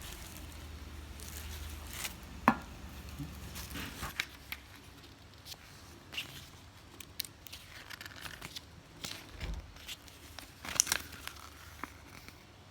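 Scattered light clicks, taps and rustling of small items being handled, with a low hum for the first few seconds.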